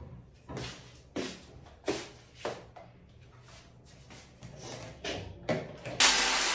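Kitchen utensils and bowls knocking and clattering: four short knocks about half a second to a second apart, a lull, then a few softer ones. Background music cuts in suddenly near the end.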